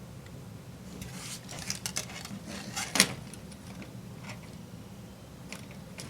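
Small clicks and taps of hands handling the micro helicopter while plugging its tail motor lead connector back together, the sharpest click about three seconds in, over a low steady hum.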